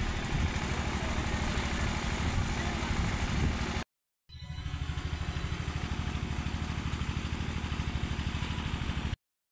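A small engine running steadily at an even speed, with a regular, rapid pulse. It cuts out for a moment about four seconds in, then carries on the same.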